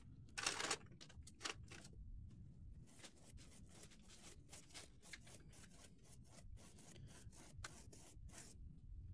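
Faint, repeated scratchy strokes of a nearly dry flat paintbrush scrubbed back and forth over scored card, blending pastel chalk powder into the surface. The loudest strokes come in the first two seconds.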